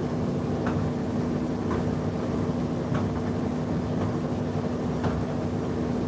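Indesit IDC8T3 condenser tumble dryer running: a steady motor and drum hum with a constant tone, and faint ticks about once a second.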